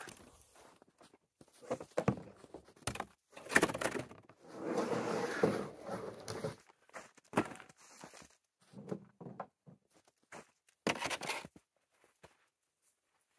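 Footsteps on packed snow and camping gear being handled, with scattered thumps and rustles and a longer stretch of rustling about five seconds in.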